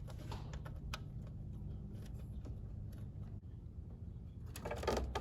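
Scattered light clicks and taps of hands working plastic parts and hose fittings in an engine bay, over a steady low hum.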